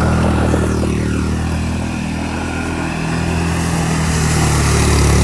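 Four-wheeler (ATV) engine running steadily. Its level dips about two seconds in and builds again near the end, as if easing off and then picking up.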